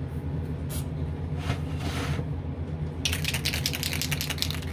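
Aerosol spray-paint can being shaken, its mixing ball rattling rapidly for about the last second and a half, after a few light knocks of handling. Under it runs the steady hum of the spray booth's exhaust fan.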